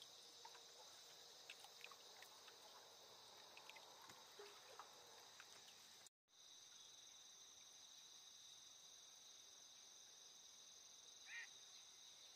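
Faint, steady insect chorus trilling in two high bands, with a few faint ticks in the first half. The sound drops out for a moment about six seconds in. A short call stands out near the end.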